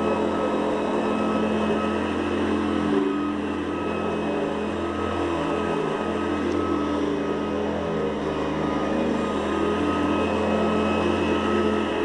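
Hoover Guardsman upright vacuum cleaner running steadily while vacuuming, its motor holding a constant pitch with a low hum beneath.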